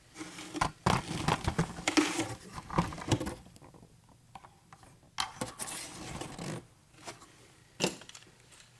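Handling and movement noise: a flurry of clicks, knocks and rustling over the first three seconds, a short scraping rustle a little past five seconds, and a single sharp click near the end.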